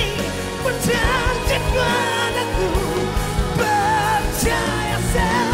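Pop ballad with band accompaniment, a voice singing long held notes with a wide vibrato.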